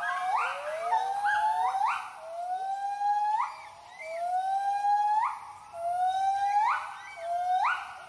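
White-handed gibbons giving their territorial hooting call: a series of long rising whoops, about one a second, each sweeping up sharply at its end, with two voices overlapping at first.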